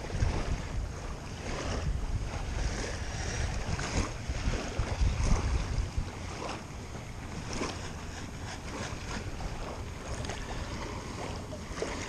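Long-handled perforated metal sand scoop (Xtreme Scoop) digging and sloshing through wet sand under shallow surf water, with scattered splashes. Wind rumbles on the microphone, heaviest in the first half.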